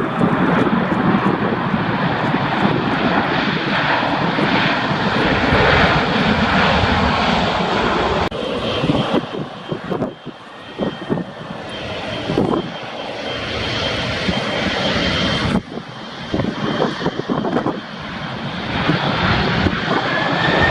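Jet airliners landing low overhead, their engines heard through heavy wind buffeting on the microphone. The sound breaks off and changes abruptly twice, about 8 and 15 seconds in, as one pass gives way to the next.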